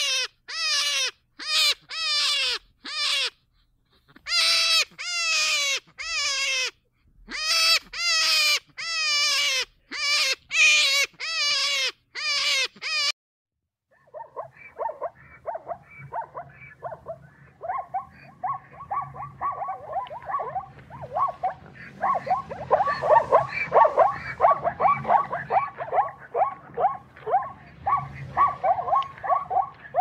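Animal calls: a run of short calls, each falling in pitch, about two a second, stops about 13 seconds in. After a brief silence a dense chorus of many rapid calls follows.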